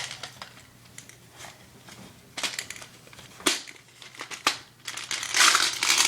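Handling noise: a few sharp clicks and knocks, then about a second of loud crinkling near the end.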